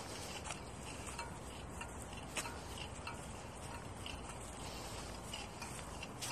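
Footsteps while walking on a concrete sidewalk: faint light clicks about every half second, one sharper than the rest about two and a half seconds in, over a steady outdoor hiss.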